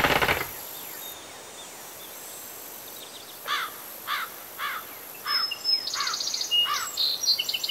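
The last of a run of rapid hammer blows in the first half second, then a steady outdoor hiss. A bird repeats a short rising-and-falling chirp about twice a second, joined near the end by higher, clearer bird chirps.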